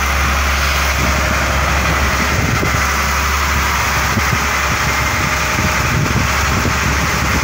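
Fishing boat's engine running steadily as a constant low hum under way, with an even rush of wind and sea over it.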